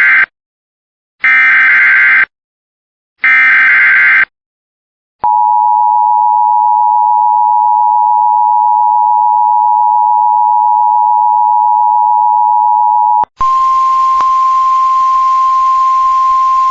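Emergency Alert System header: the end of one burst and then two more one-second bursts of warbling digital data tones, followed by the EAS two-tone attention signal held steady for about eight seconds. Near the end it switches to a hissy radio feed carrying a single steady alert tone, which is typical of the NOAA Weather Radio warning tone.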